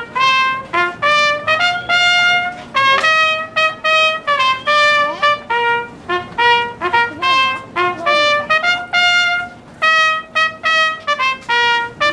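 Trumpets playing a bright fanfare-style passage, mixing quick short notes with longer held ones.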